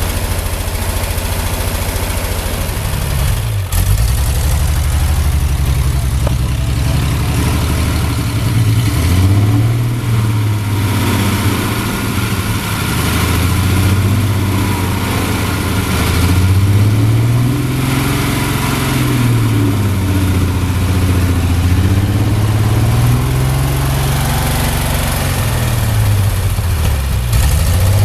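Ford 8N tractor's flathead engine running, its speed dipping briefly about three and a half seconds in, then rising and falling again and again.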